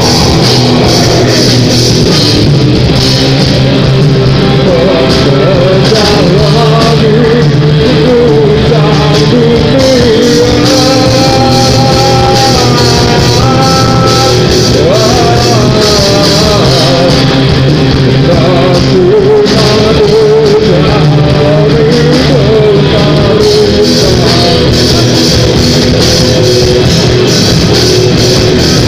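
Rock band playing live and loud: electric guitars, bass guitar and drum kit, with a singer.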